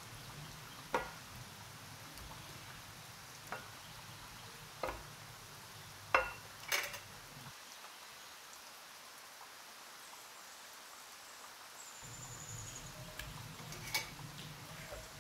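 Raw chicken wings being set one at a time into a ceramic bowl: a handful of separate soft taps and clinks over a low background hum, which drops out for a few seconds midway.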